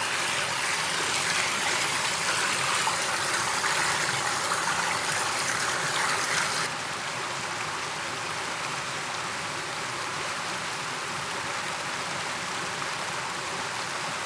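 Cold river water flowing, a steady rush. About halfway through it drops suddenly quieter and duller, then keeps on evenly.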